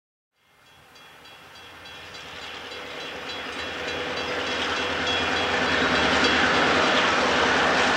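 Five Grand Trunk Western diesel locomotives heading a freight train, their engines growing steadily louder as they approach. The sound starts about half a second in and builds through the whole stretch.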